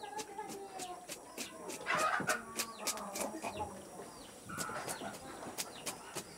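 Domestic chickens clucking, with a short held call about five seconds in, over a run of short sharp clicks.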